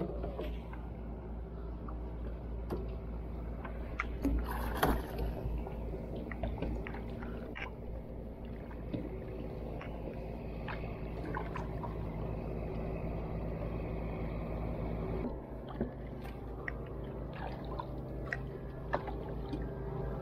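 A boat engine hums steadily, shifting to a different pitch about fifteen seconds in. A few short knocks sound around the wooden canoe, the loudest cluster about four to five seconds in.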